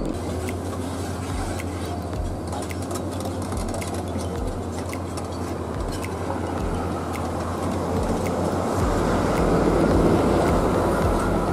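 A heavy diesel engine running with a steady low rumble, growing louder about eight seconds in.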